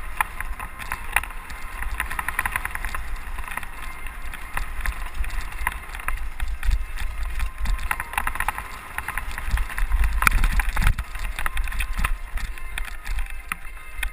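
A 29er mountain bike clattering and rattling at speed down a rough dirt trail, with wind buffeting the helmet-mounted camera's microphone. The wind rumble is strongest about ten seconds in.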